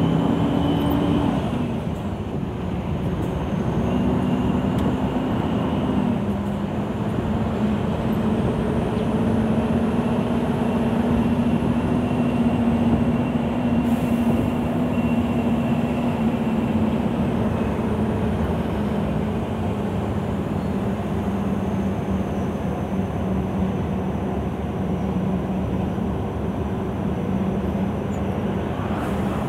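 Scania 164L 580's V8 diesel engine running under way downhill, heard from inside the cab with road noise. Its note drops about a second and a half in, picks up again a couple of seconds later, then slowly sags.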